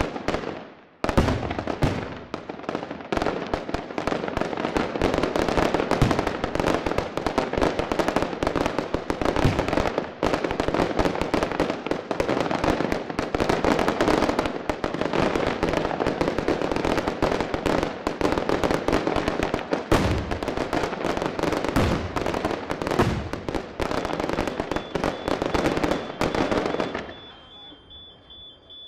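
Fireworks going off in a dense, continuous run of crackling bangs and pops for over twenty seconds, starting about a second in, with a few deeper booms mixed in; it dies away shortly before the end.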